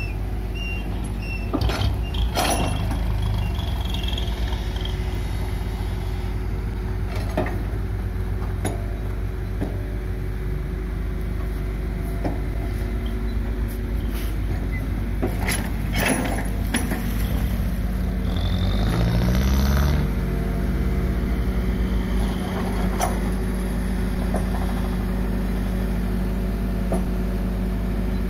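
Six-wheel tipper lorry's diesel engine running steadily, with several sharp knocks and clanks scattered through. About two-thirds of the way through, the engine briefly revs up, rising in pitch.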